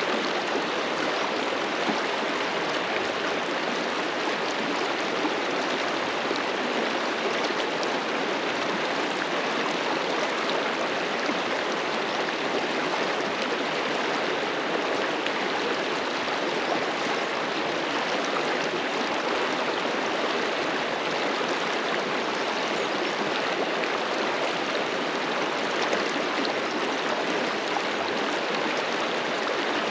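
River water flowing over rocks, a steady rushing with no letup.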